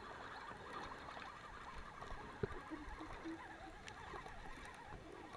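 Fishing reel being wound in while a hooked fish is played: a faint, even, grainy whirr, with one sharp click about two and a half seconds in.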